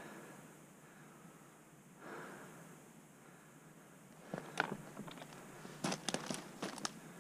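Two soft breaths, then from about four seconds in, dry twigs and brush crackling and snapping underfoot as someone steps through deadfall.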